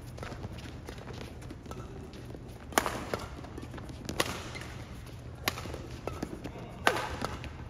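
Badminton doubles rally: four sharp racket hits on the shuttlecock, about a second and a half apart, with players' quick footsteps on the court between them.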